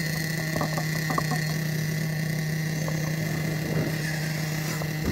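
A steady mechanical hum, like an engine or motor running at a constant speed: a low drone with a higher whine over it that holds level throughout, with a few faint ticks in the first second or so.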